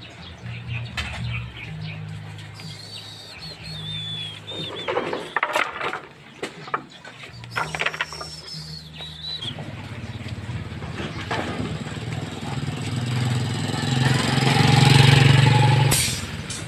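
A vehicle's engine running with a low steady hum. It grows louder to a peak near the end, then drops off quickly, like a vehicle passing. A few short bird chirps sound in the first half.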